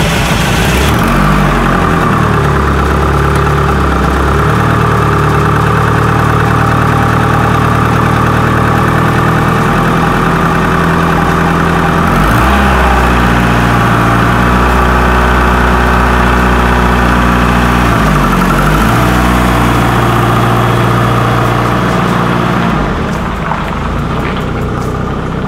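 Turbocharged four-cylinder engine of a 1997 2G DSM running just after a start, its note shifting up and down in pitch a few times as it is driven slowly out of the garage. It gets a little quieter near the end.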